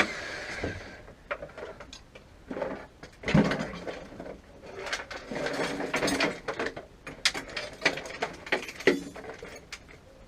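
Irregular knocks, clicks and small rattles of the stripped car body's sheet metal being handled and moved.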